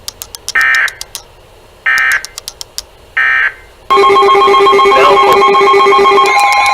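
NOAA Weather Radio EAS end-of-message signal: three short screeching digital data bursts about a second and a half apart, with scattered clicks, marking the end of the warning. About four seconds in, a loud electronic alert tone starts: several steady pitches with a pulsing beep underneath.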